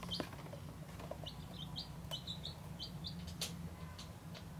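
Young chicks peeping: about ten short, high, downward-sliding peeps in quick runs, with a few sharp clicks, the loudest about three and a half seconds in, over a steady low hum.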